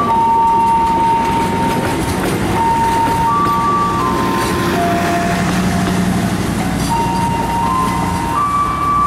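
Passenger train's coaches rolling past as it pulls away, a steady rumble of wheels on rail. Over it run whining tones that jump between a few pitches every second or two.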